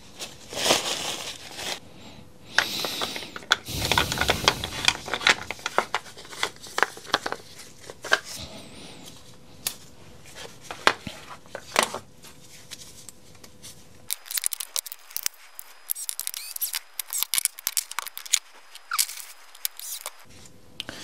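Hands working plastic chainsaw cover parts and small screws on a metal workbench: an irregular run of clicks, light rattles and plastic-bag rustling, sparser and lighter in the last few seconds.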